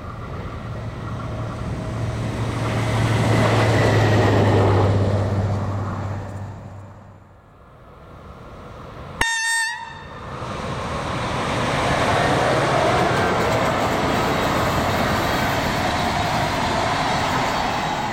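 A red diesel locomotive runs past with a steady low engine hum that builds to about four seconds in and then fades away. About nine seconds in, a locomotive horn gives one short toot. Then an electric locomotive hauling passenger coaches rolls past with a steady rush of wheel and rail noise that fades near the end.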